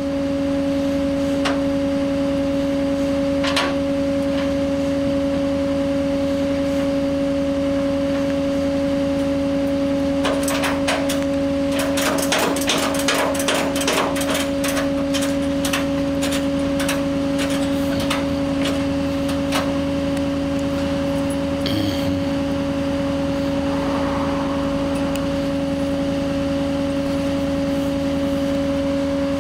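A flatbed tow truck running its bed hydraulics with a steady hum. Partway through, a run of quick metallic clanks and rattles lasts several seconds as the loaded bed is moved.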